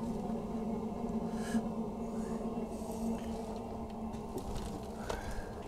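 Steady low electrical or mechanical hum, with a few faint clicks and a short squeak near the end.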